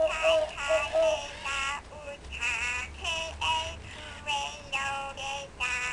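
Furby 2 talking toy singing in its high electronic voice: a string of short, chirpy sung syllables with brief gaps between them, the song it performs when told to sing.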